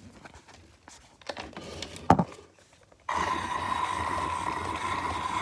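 A few handling clicks, and a sharp click about two seconds in. About three seconds in, a battery-powered toy truck's small electric motor and gears start suddenly and run steadily with an even whine.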